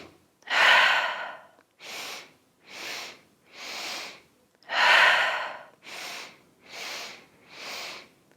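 Yogic three-part breathing: a forceful exhale, then three short staged inhales through the nose about a second apart, and the cycle again, with the second forceful exhale about five seconds in.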